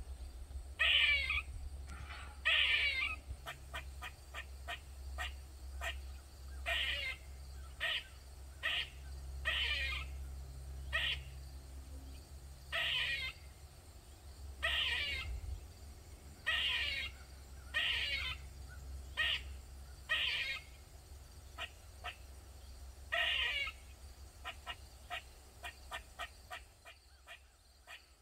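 Eastern gray squirrel giving its loud repeated alarm call: harsh calls about one a second, with runs of short rapid clicking chucks between them. The calls thin out near the end.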